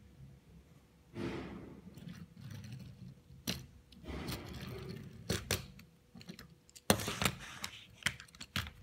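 Light clicks and knocks of a die-cast toy car being handled against plastic toy track, with two stretches of soft rolling or rustling in between. The clicks come irregularly, the loudest about seven seconds in.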